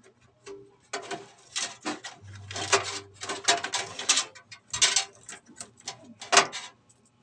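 Rapid, irregular clicks, taps and short scrapes of small hard plastic and metal parts being handled and fitted together, as in assembling a desktop PC.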